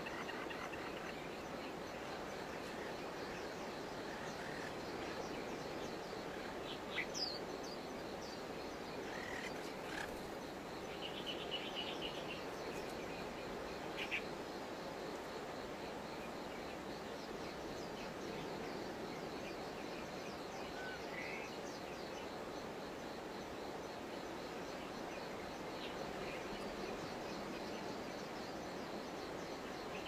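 Forest ambience: a steady background hiss, with scattered short bird chirps and calls over it, and a brief trill about eleven seconds in.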